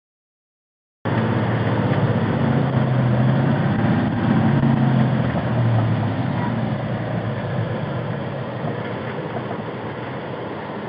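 Fire truck's diesel engine running steadily, starting about a second in, with a low hum that eases slightly in the second half.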